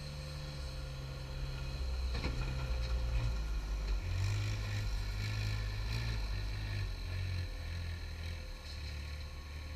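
Diesel engine of a site dumper driving past close by, getting louder to a peak about midway as it passes and then easing as it pulls away, its revs stepping up and down.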